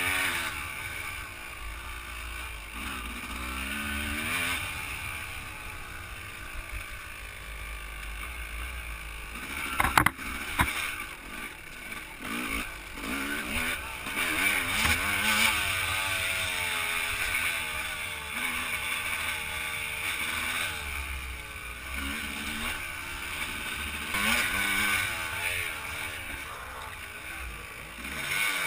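Dirt bike engine revving up and down as it is ridden along a trail, with low wind rumble on the camera. Two sharp knocks about ten seconds in.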